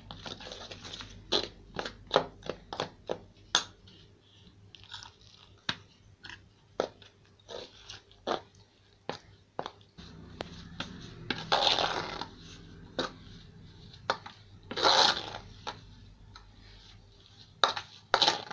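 A spoon stirring and scraping rice flour and water in a stainless steel bowl: many short clicks and scrapes of the spoon on the metal with the crunch of damp flour. There are two longer, louder spells of scraping in the second half.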